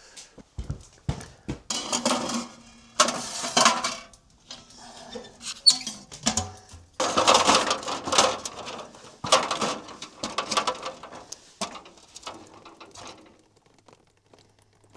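Food being prepared by hand: an irregular run of short clatters, clicks and rustling bursts, fading near the end.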